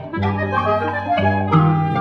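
Contemporary chamber-ensemble music: clarinet and flute lines over repeated low string notes, with sharp percussive attacks.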